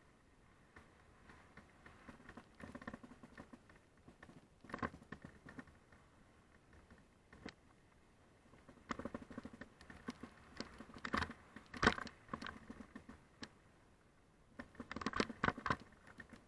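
Mountain bike clattering over a loose gravel trail: irregular bursts of rattling and clicking from the bike and the stones under its tyres. The strongest bursts come past the middle and near the end.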